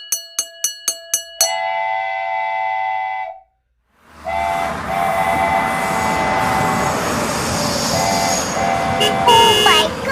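Rhythmic ticking, then a long horn tone and a brief gap, followed by a train running with its horn sounding in several blasts over the rumble.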